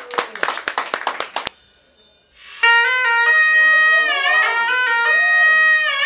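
Applause dies away about a second and a half in. After a short hush, a piri (Korean double-reed pipe) starts playing loud, reedy held notes that slide between pitches.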